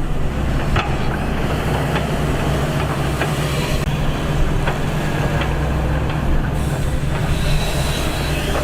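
Excavator's diesel engine running steadily under load, with scattered metallic clanks and knocks over it.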